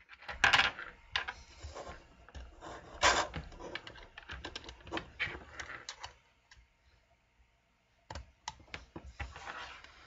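Clicks and rattles of an RG-58 coaxial cable's metal BNC connectors being handled and fitted onto the oscilloscope's input jacks, in an irregular run that stops about six seconds in and starts again about two seconds later.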